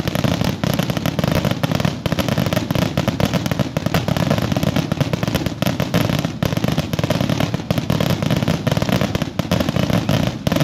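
Fireworks finale barrage: aerial shells bursting and crackling in a rapid, unbroken string of overlapping bangs.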